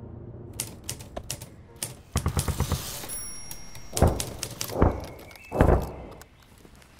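Typewriter keys striking as a date is typed out: scattered clicks, then a quick run of strikes. From about four seconds in come three heavy, deep thuds, a little under a second apart.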